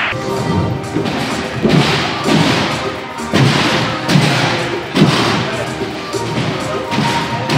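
Repeated dull thumps, several a second apart, of gymnasts landing and rebounding on a sprung tumbling track and trampolines.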